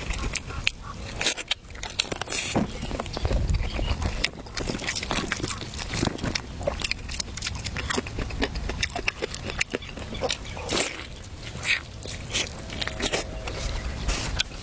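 Close-up eating sounds: irregular wet clicks and crunches of someone biting and chewing meat.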